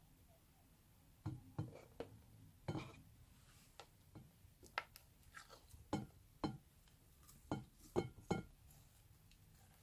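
A series of light knocks and clicks, about a dozen at irregular spacing, a few with a short ring: plastic containers and a bowl being handled and set down while clear slime is moved back into the bowl.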